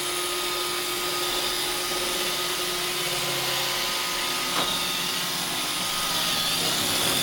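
iRobot Roomba robot vacuum running steadily, its motor and brushes making an even whir with a faint steady hum. There is a brief light knock about four and a half seconds in.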